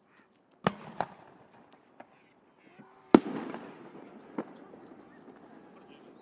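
Aerial fireworks shells bursting: five separate bangs over a few seconds, the loudest about three seconds in, each followed by a rumbling echo that fades slowly.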